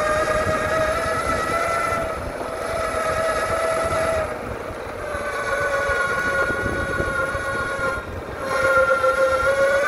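SYL-08 V3 electric mountainboard's motors whining at a steady pitch over a low rumble from its wheels. The whine fades briefly three times, about two seconds in, around the middle and near the end.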